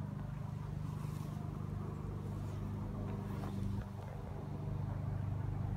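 Steady low mechanical hum, with a short dip about four seconds in.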